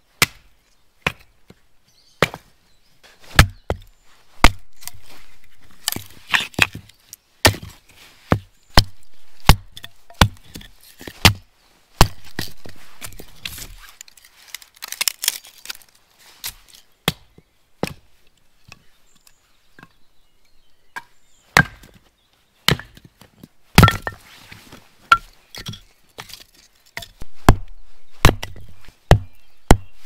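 Fiskars hatchet chopping and splitting firewood logs: a long series of sharp, irregularly spaced chops of the blade into wood.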